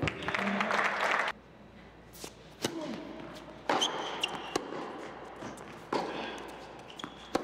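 Indoor tennis: sharp knocks of the ball bouncing and being struck, each echoing in the hall. Crowd noise at the start cuts off suddenly about a second in.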